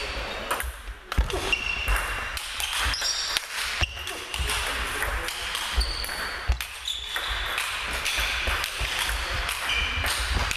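Table tennis rally: the celluloid ball clicking sharply off the rackets and the table at irregular intervals, with voices chattering in the background.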